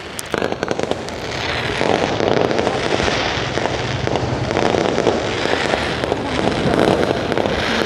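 Fireworks going off in quick succession: a few separate pops, then, about a second and a half in, a dense, continuous crackle of bursts.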